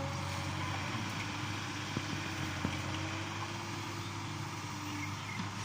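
Backhoe loader's diesel engine running steadily, with a couple of light knocks about two seconds in.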